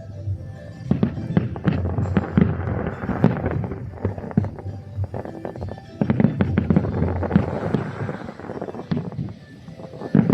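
Aerial fireworks going off in dense volleys of bangs and crackles. They thin out briefly near the end, then another burst starts.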